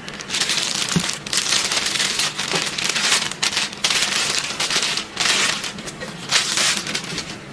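Wrapping crinkling and rustling in irregular bursts as a handbag is pulled out of it by hand.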